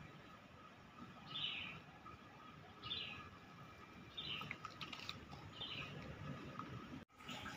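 A small bird chirping four times, short high calls about a second and a half apart, faint over quiet outdoor background noise.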